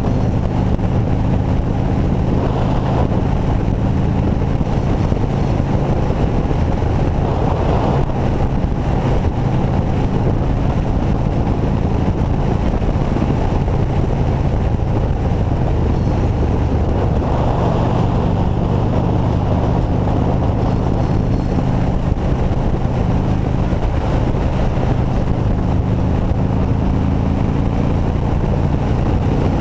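Motorcycle engine running at a steady cruising speed, heard from the rider's seat with wind and road noise over it. The engine note shifts a couple of times, most clearly about halfway through.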